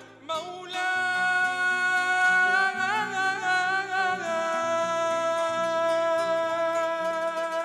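A man sings a long, drawn-out vocal line over two strummed and plucked acoustic guitars. There is a small ornamented flourish about three seconds in, then he holds one long steady note to the end.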